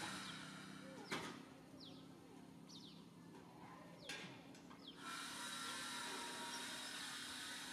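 Faint outdoor background with a steady low hum and noise. In a quieter stretch from about one to five seconds in there are four short, high chirps, each falling in pitch, and a couple of soft clicks.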